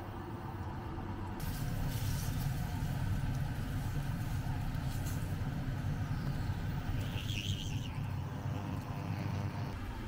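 A fish fillet frying in oil in a pan: a steady sizzle over a low, steady rumble, with a short high chirp about seven seconds in.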